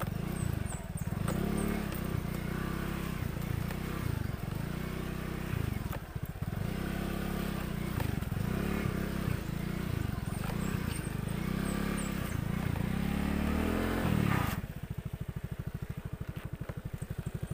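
Suzuki Skydrive motor scooter engine surging up and down again and again as it is ridden over a rutted, muddy dirt road, with rattling from the rough surface. About 14 seconds in, the rattle falls away and the engine settles to a quieter, steady putter.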